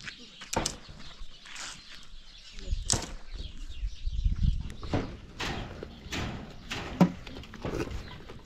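About a dozen irregular knocks and clatters, spaced unevenly, the loudest a little after seven seconds in, with a low rumble in the middle.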